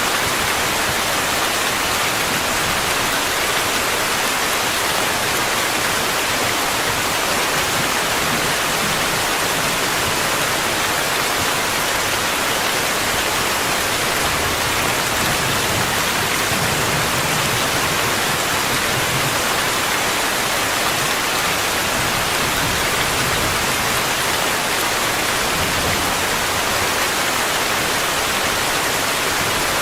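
Steady, dense rainfall: an even hiss of countless drops, unchanging throughout.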